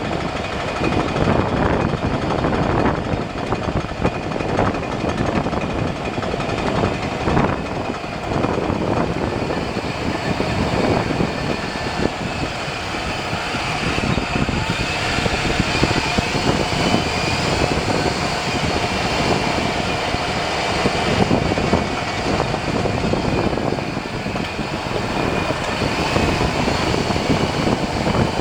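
2001 Chevy Silverado driving, road and wind noise filling the cab, with a constant noise from the front driveline. The noise turned out to come from a failing front drive shaft between the transfer case and the front differential.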